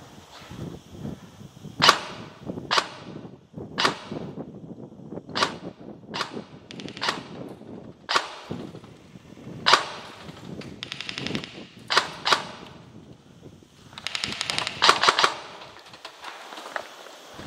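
Airsoft guns firing: a string of single shots about a second apart, then a short rapid full-auto burst about eleven seconds in and a longer one around fifteen seconds.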